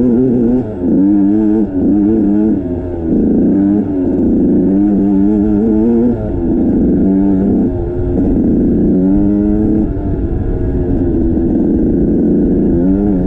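Dirt bike engine under way, its pitch climbing and dropping again and again as the throttle is worked.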